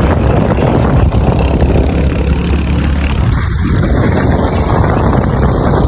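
Motorcycle engine running while riding, with wind rushing over the microphone.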